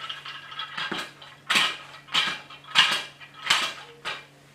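Wooden bead maze toy shaken, its beads clattering on the wire loops in a series of short rattles, five loud ones about two-thirds of a second apart.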